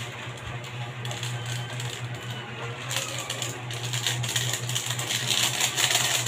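Alugbati (Malabar spinach) leaves sizzling and crackling in a hot wok, the crackle getting denser and louder about halfway through, over a steady low hum.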